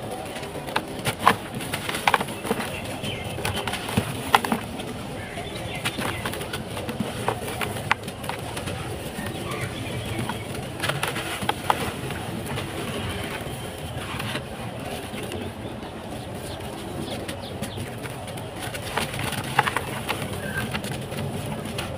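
Dry, stony clumps of sandy cement-and-mud mix crumbled by hand: a steady gritty crunching and trickling of falling grains, broken by frequent sharp crackles as pieces snap apart.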